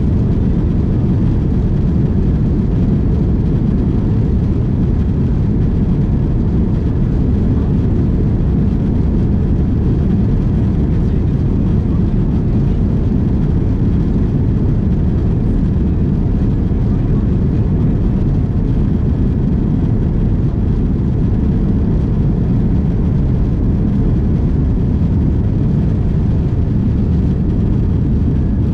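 Cabin noise of an Airbus A330-300 on its takeoff run, heard from a window seat aft of the wing: the jet engines at takeoff thrust and the wheels rolling on the runway make a steady, loud, deep rumble. The aircraft lifts off near the end.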